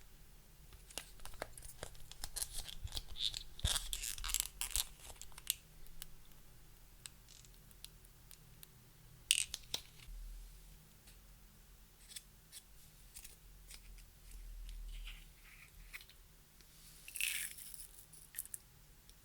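Close-up sticky crackles, clicks and scrapes from hands working clear slime with makeup and glitter, in irregular clusters: densest over the first few seconds, with a sharp snap about nine seconds in and another burst near the end.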